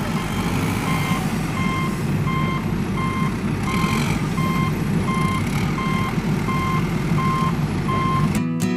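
Vehicle reversing alarm beeping steadily, one short single-pitch beep about every 0.7 s, over a steady low machine noise. Both stop suddenly near the end.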